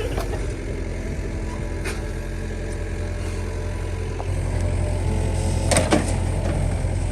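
Heavy diesel truck engine running steadily, with a short metallic clatter about six seconds in.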